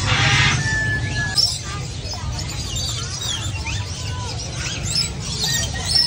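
Many caged birds chirping and calling at once: short, overlapping chirps that glide up and down in pitch, with a couple of longer held whistling notes. A steady low background hum runs underneath.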